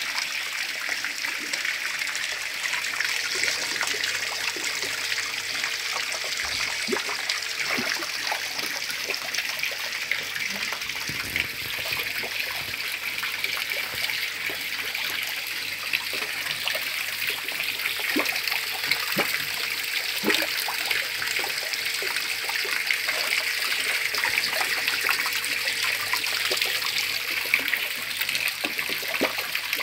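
Steady running, trickling water at a carp pond, with scattered small splashes and clicks as the crowded carp break the surface.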